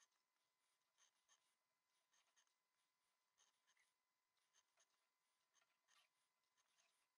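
Very faint mechanical pencil marking paper against a plastic curve template: short light scratchy ticks at irregular spacing, one to three a second, over a faint steady thin tone.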